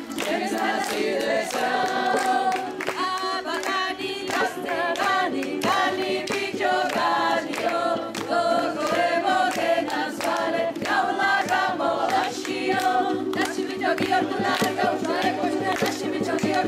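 Choir singing a dance song in several voice parts over a steady held drone, with a regular beat underneath.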